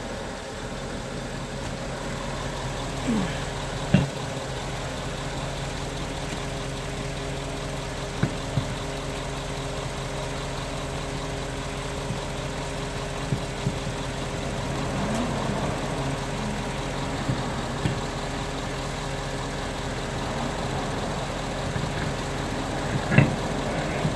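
Truck engine idling steadily, with a few short metallic clunks and knocks from handling the wheel and lug nuts.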